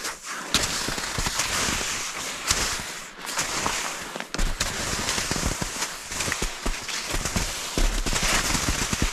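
A person walking over the forest floor: footsteps with a dense, irregular run of sharp snaps and crunches underfoot.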